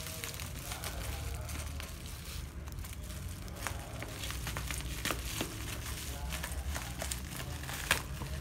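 Plastic bubble wrap crinkling and crackling as scissors cut through it, in irregular sharp snips and crackles, one louder near the end.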